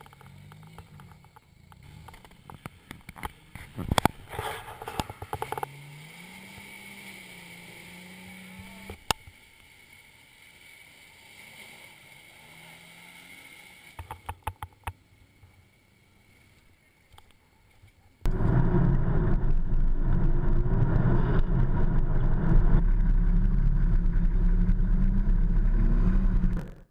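Engines of off-road 4x4s working through deep mud, the engine note rising and falling, with scattered knocks. About two-thirds of the way in, a much louder, steady engine noise from close by takes over and cuts off suddenly near the end.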